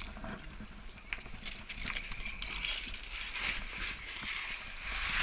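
Irregular clicks, clinks and scuffs of a climber's gear and gloved hand scraping and jamming against the rock of a crack.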